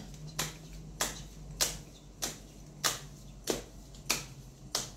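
A deck of tarot cards being shuffled by hand, overhand: a sharp slap of cards about every two-thirds of a second, about eight in all.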